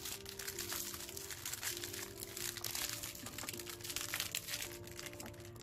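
Metallic foil wrappers crinkling and crackling in an irregular run as two pairs of hands tear open and unwrap small slime cups.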